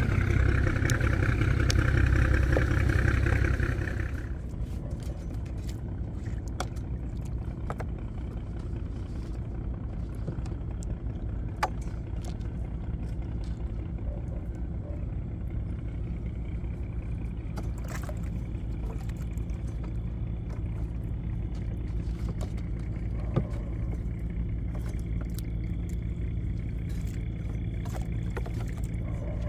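Small fishing boat's engine running at higher throttle, then throttled back about four seconds in to a steady low run for the rest, with a few scattered knocks and clicks.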